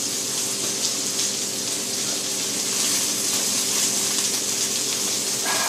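Crumb-coated chicken breasts frying in oil in a frying pan, a steady high sizzle, with a faint low hum beneath it.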